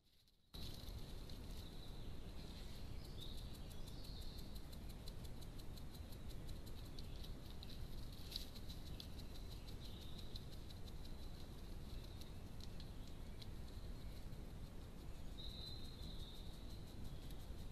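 Steady background hiss of a trail camera's microphone, with faint rapid high ticking and a few soft high chirps.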